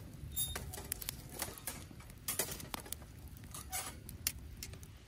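Wood fire crackling in an open fire pit, with irregular sharp snaps and pops over a low steady rumble.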